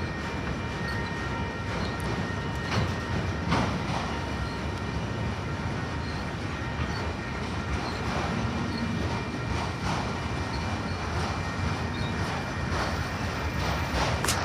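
Train rolling past on the rails: a steady rumble with a few scattered sharp clicks.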